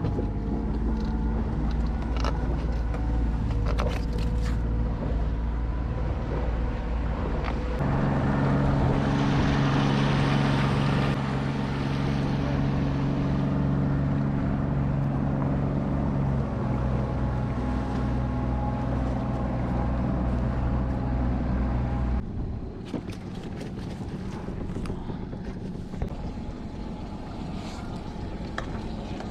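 Boat engine running steadily with a low droning hum, growing louder about eight seconds in and dropping back sharply about twenty-two seconds in.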